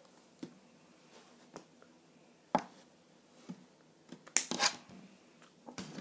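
Hands tapping, brushing and slapping during sign language in a small room: scattered sharp taps, the loudest about two and a half seconds in and a quick cluster of slaps just after four seconds.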